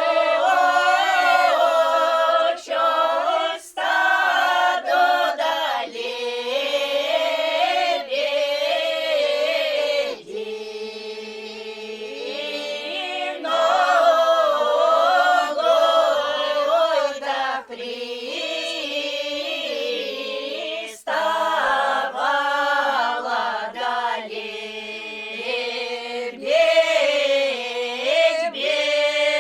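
Pomor folk ensemble singing a northern Russian folk song a cappella, several voices together in harmony. The song moves in long, ornamented phrases with brief breaks between them.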